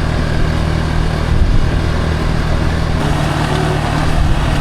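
Small motorcycle engine running at a steady speed while riding, under a steady rush of wind noise.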